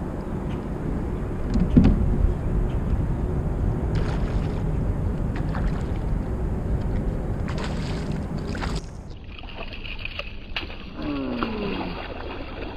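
A big smallmouth bass splashing in the water beside a fishing kayak as it is fought and netted, over a steady low rumble of wind on the microphone. Near the end a man's voice exclaims.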